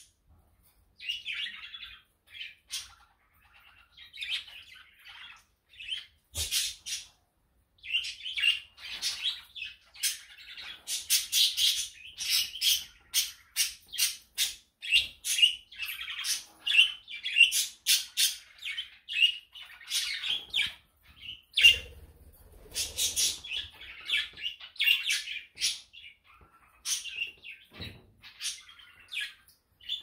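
Several budgerigars chirping and chattering in quick, sharp calls, busiest through the middle. A brief low thump a little over two-thirds through is the loudest moment.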